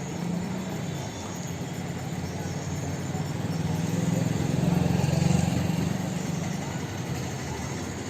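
A motor vehicle engine running with a steady low hum, growing louder about halfway through and then easing off.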